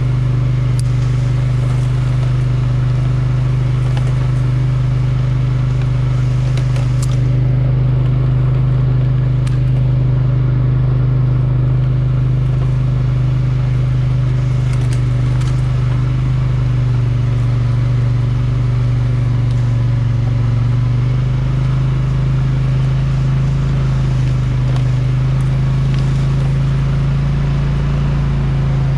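ATV engine running steadily as the quad rolls along a trail, its drone rising a little in pitch past the middle. A few sharp ticks and some rustling come over it.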